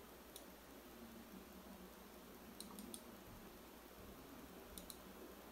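Faint computer mouse clicks over near-silent room tone: one shortly after the start, three in quick succession around the middle, and two close together near the end.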